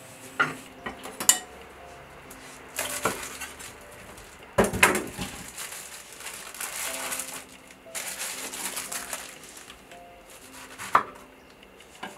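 Kitchen prep: sharp knocks and clinks of hands, a knife and utensils on a wooden cutting board, with a heavier knock about five seconds in. Between them come stretches of crinkling plastic as a pack of enoki mushrooms is unwrapped.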